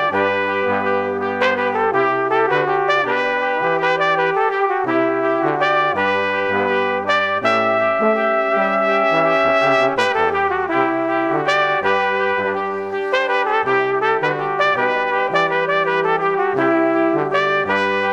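Background music: brass instruments playing chords over a moving bass line, the notes changing every half-second to second.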